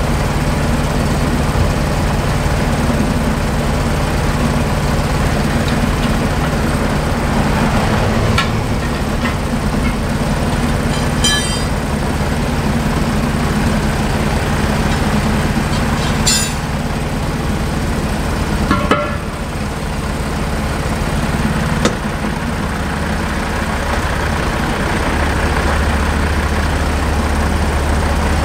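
A heavy diesel truck engine idling steadily, with a few short, sharp metal clinks from the tire work. A deeper engine rumble joins in near the end as another vehicle approaches.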